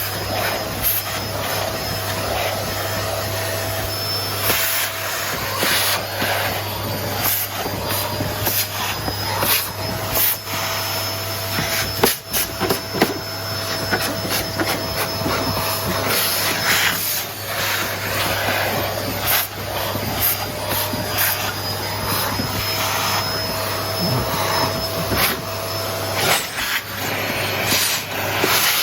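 Paper-bag vacuum cleaner running steadily with a steady motor whine, and frequent short clicks and rattles throughout.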